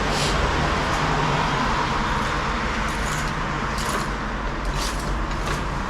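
Steady road traffic noise, with a few short sharp hisses or scrapes standing out over it.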